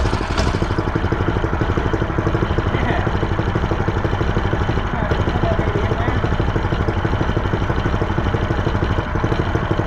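Predator 212 single-cylinder four-stroke engine running at a steady idle, started on a newly re-roped recoil pull starter.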